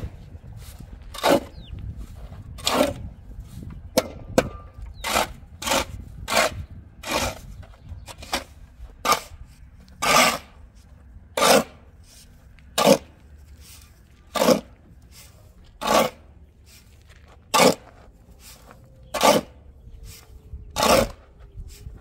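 Steel spade blade scraping and cutting into a heap of earth on hard ground, turning it over stroke after stroke. The strokes come every half second to a second at first, then slow to about one every second and a half after about ten seconds.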